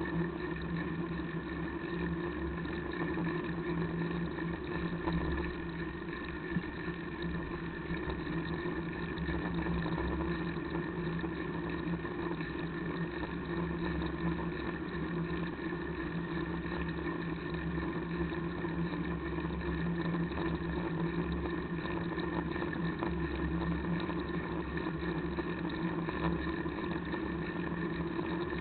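Steady rumbling noise of a bicycle-mounted camera riding along a road, made by road vibration with uneven low buffeting, with a constant hum underneath.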